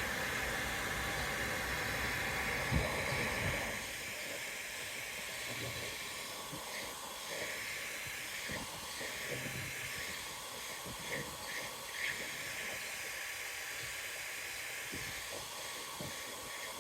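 Handheld hot-air blower heating the adhesive tape on a door handle cover, a steady airy hiss. About four seconds in the low rumble drops away and the hiss goes on fainter and uneven.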